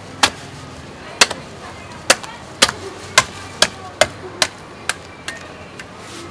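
Butcher's meat cleaver chopping into a pig carcass: about ten sharp strikes, roughly half a second apart.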